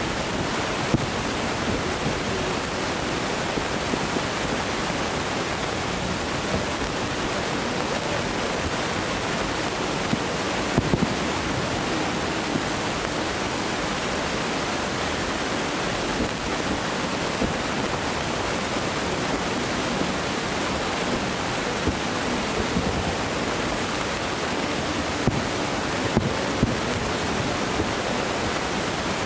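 A steady rushing noise, with distant fireworks bursting as short sharp pops every few seconds at irregular intervals.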